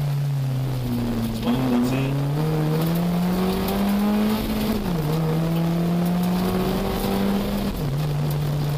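Rally car's engine heard from inside the cabin, revving up under load through the gears. The pitch climbs steadily, then drops sharply with an upshift about halfway through and again near the end.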